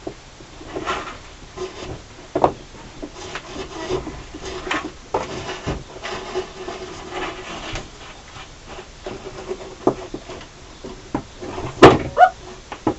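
Scattered rubbing, scraping and knocks of hands-on work against wood, likely handling wiring at a drilled hole, with one sharp loud knock near the end.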